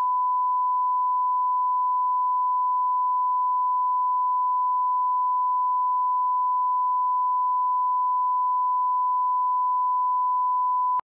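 Steady 1 kHz line-up tone that goes with broadcast colour bars: one unbroken pure beep at a constant pitch, cutting off abruptly near the end.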